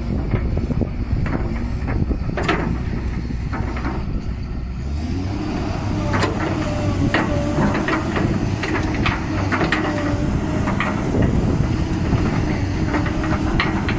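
Komatsu hydraulic excavator's diesel engine running while the boom, arm and bucket move, with repeated metallic knocks and clanks from the linkage. About five seconds in, the engine note steps up and a steady whine joins it as the hydraulics take load.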